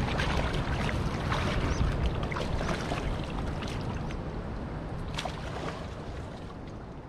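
Legs wading through shallow river water, splashing with each step, over a steady low rumble of wind on the microphone; the splashing grows quieter near the end as the wader stops at the bank.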